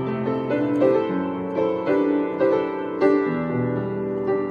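Piano played with both hands: a chord progression in the key of C. Full chords are struck about every half second and ring on between changes.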